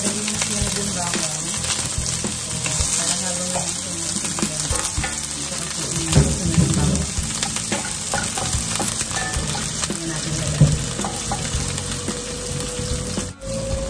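Sliced onions sizzling in hot cooking oil in a stainless steel pan, stirred with a wooden spatula that clicks and knocks against the pan now and then. The sound drops out for an instant near the end.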